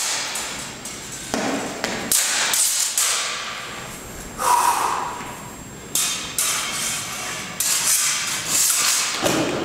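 Original 1850s Swedish army steel practice sabres clashing and the fencers' feet stamping on the hard floor in sparring: a string of sharp clacks and thuds about every second, some with a short ringing tail.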